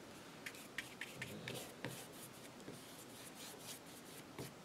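Faint, scratchy strokes and dabs of a paintbrush working acrylic paint onto a canvas, in short irregular touches.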